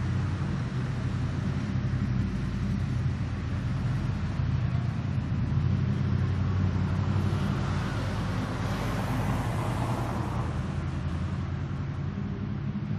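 Daytime city street traffic: a steady low rumble of car engines and tyres, with a vehicle passing close by, swelling and fading between about seven and eleven seconds in.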